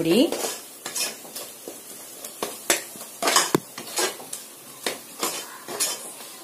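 Metal spatula scraping and clinking against the inside of an aluminium pressure cooker as a thick masala paste is stirred, in irregular strokes about twice a second, over a faint sizzle of the paste frying in oil.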